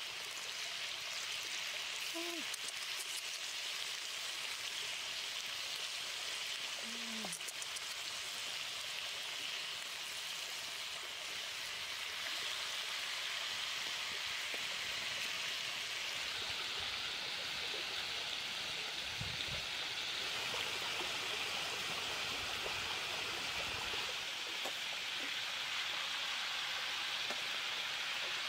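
Pork-stuffed bitter melon rings sizzling in hot oil in a pan, a steady frying hiss.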